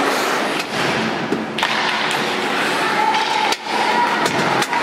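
Ice hockey play in an echoing rink: several sharp knocks of sticks and puck against ice and boards, over a constant wash of spectators' voices.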